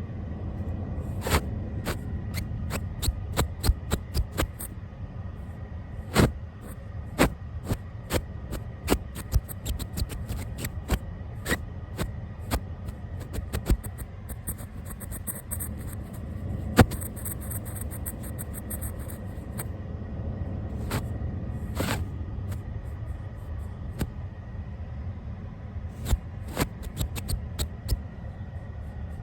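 Brush bristles swept across a camera and its microphone, a scratchy rustle with many irregular sharp clicks and crackles and a low rumble underneath.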